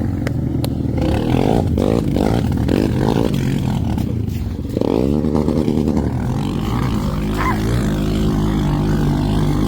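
ATV engine running under changing throttle, its pitch rising about five seconds in and then holding steady.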